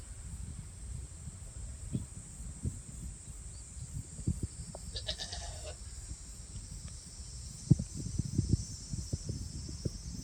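A goat bleats once, briefly, about five seconds in, over scattered low thumps and knocks.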